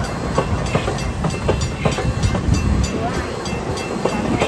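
Long Island Rail Road train passing, with a steady low rumble and a quick run of wheel clicks over the rail joints.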